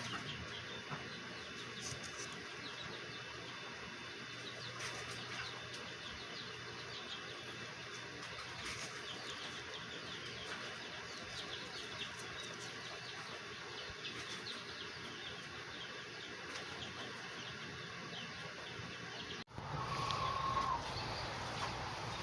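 Birds chirping and calling against a steady background hiss. The background changes abruptly near the end.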